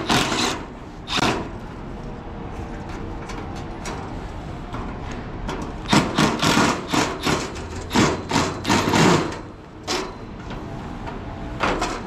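Cordless impact driver backing out the Phillips screws of a patio heater's sheet-metal front cover. It runs in several short bursts with pauses between them, and the longest bursts come around six and eight seconds in.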